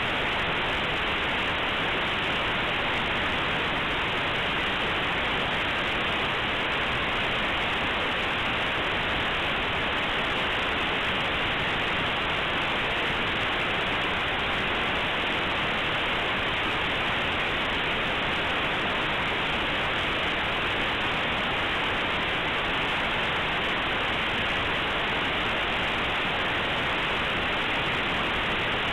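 Steady, unchanging static-like hiss: the compressed Linux kernel image played as raw audio through aplay, its near-random bytes heard as white noise. Nothing sounds above about 4 kHz, as expected from aplay's default 8 kHz, 8-bit playback.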